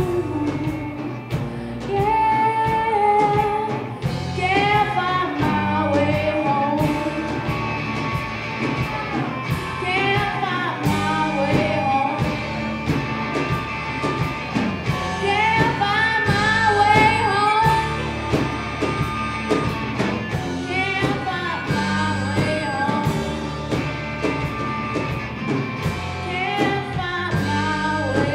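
A live rock band playing: sung vocals over electric guitars and a drum kit, with a steady beat.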